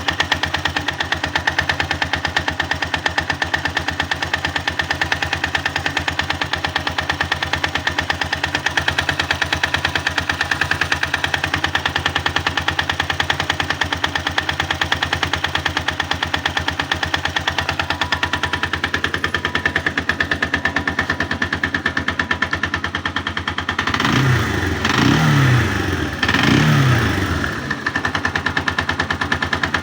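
162FMG single-cylinder four-stroke engine running with a fast, even knocking rattle, a knock whose origin the owner cannot pin down. Near the end the engine is blipped three times, each rev falling straight back.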